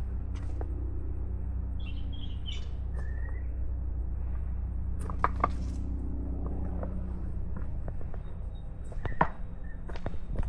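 Outdoor trail ambience: a steady low rumble, with a few short bird chirps, one higher chirping burst about two seconds in, and a few sharp clicks around the middle and near the end.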